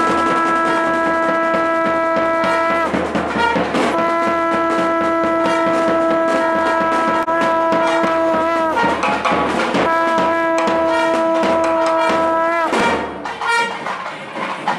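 Conch shell (sangu) blown in long single-note blasts, three in all, each held steady and sagging in pitch as it ends, marking the lamp-flame offering (arati) to the deity. A continuous clatter of percussion runs underneath.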